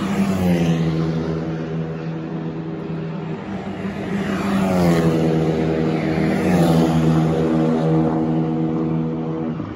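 Renault Clio Cup race cars going past at speed on the straight, one after another. Each engine note drops in pitch as the car goes by and pulls away: once at the start, again about five seconds in, and once more a second and a half later.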